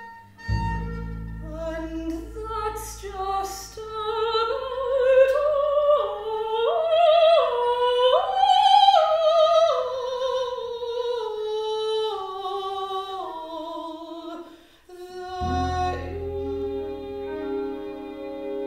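Soprano singing with a wide vibrato over a held low bowed contrabass note. The voice climbs in steps to a high peak about nine seconds in, then slides back down. Near the end the voice stops and a new low sustained note enters.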